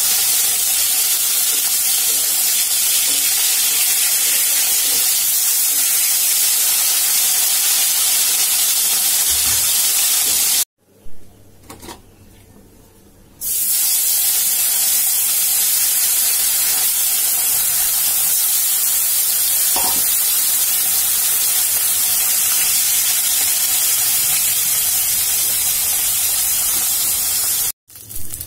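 Fish pieces frying in hot oil in an iron wok, a loud, steady sizzle. The sizzle cuts out for about three seconds near the middle, then carries on.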